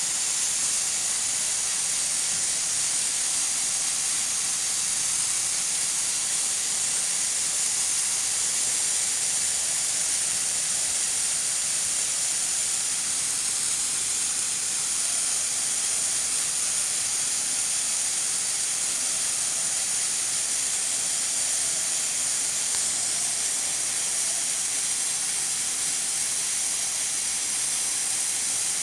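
Nigro pressure cooker at full pressure, steam hissing steadily out past its weight valve in an even, high-pitched hiss.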